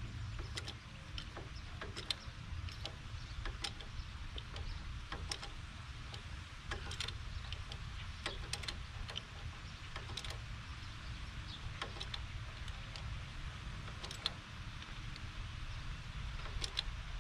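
Hydraulic bottle jack being pumped against an axle to press off a seized brake drum and hub, giving sharp irregular clicks and knocks about once or twice a second over a steady low rumble.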